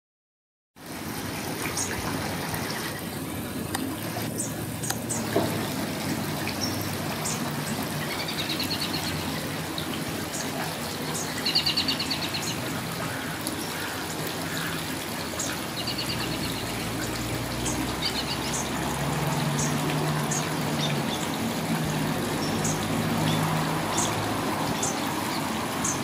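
Shallow stream trickling and splashing over rocks, starting just under a second in. Short high bird calls and a few quick trills sound above the water.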